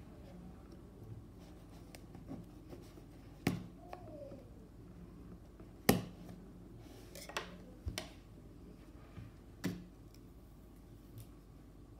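A cardboard product box being handled on a table while its seal is cut with a small knife. About half a dozen sharp knocks and taps are heard, the loudest about six seconds in.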